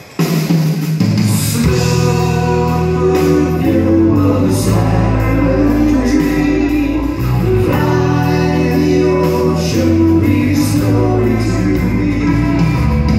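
Live rock band playing electric guitars, bass and drums, with male lead vocals. The band drops out for a moment at the very start, then comes back in at full level.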